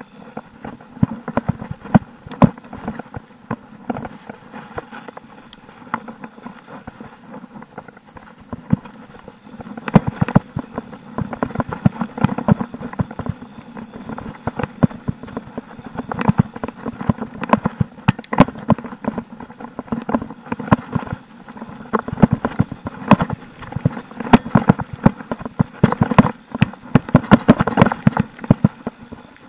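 Mountain bike rattling and clattering as it rolls fast over a rough dirt trail, with rapid knocks and clicks from the chain, frame and tyres striking roots and stones. The clatter grows denser and louder in stretches from about a third of the way in and again near the end.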